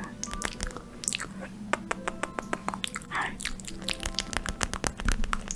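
Close-miked ASMR clicks and sticky tapping sounds, quick and irregular, with a soft breathy whoosh about three seconds in.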